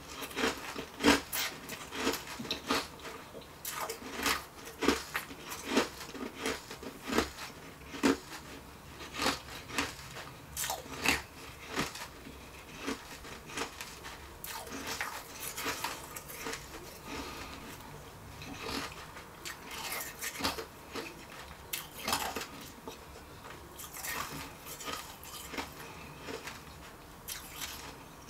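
Refrozen shaved ice being chewed close to the microphone: a quick, irregular run of sharp crunches that grows sparser and softer in the second half.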